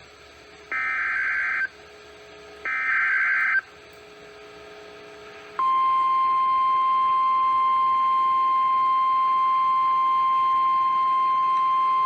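NOAA Weather Radio emergency alert signal: two short digital SAME header data bursts, each about a second long with a second's gap, then about five and a half seconds in the steady 1050 Hz warning alarm tone, which holds. It marks the start of a new warning broadcast.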